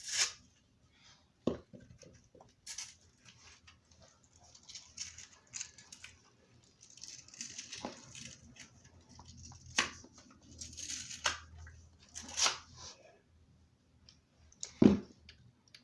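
A Moonball bouncy ball being cut and torn apart by hand: irregular ripping and scraping noises with scattered sharp snaps.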